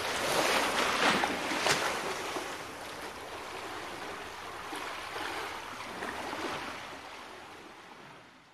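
Sea waves washing on the shore, a steady rush of surf with a couple of stronger surges in the first two seconds, then fading out toward the end.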